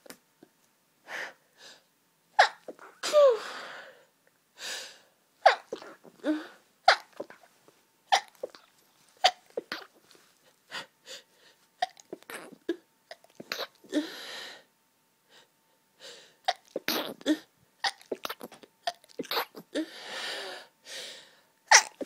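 A woman in a hay fever sneezing fit, sneezing over and over: a dozen or more short, sharp sneezes about a second apart, some ending in a voiced cry that falls in pitch.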